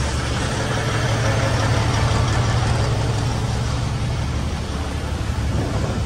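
Semi-truck diesel engine idling with a steady low rumble and an even hiss above it.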